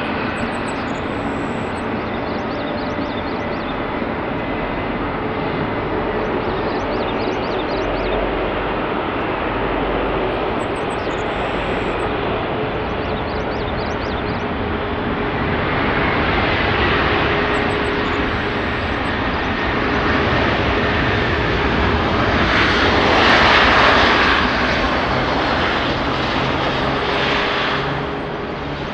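Airbus A319 jet engines running steadily, their noise building to a peak about three-quarters of the way through and easing off near the end.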